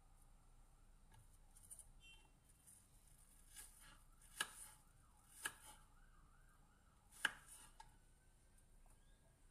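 Kitchen knife slicing an apple on a wooden cutting board: three sharp knocks of the blade striking the board, in the middle of the stretch, with a few lighter taps. A faint siren wavers in the background during the second half.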